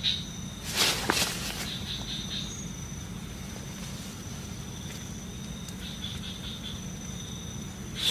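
Night insects: a steady high trill with crickets chirping in short pulsed runs, over a low steady hum. About a second in, a brief rustling crunch.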